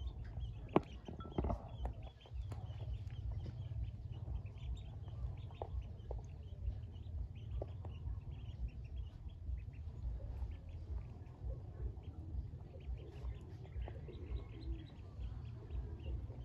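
A group of newly hatched Pekin ducklings peeping steadily, many short high peeps overlapping, over a steady low rumble. There are a couple of sharp knocks about a second in.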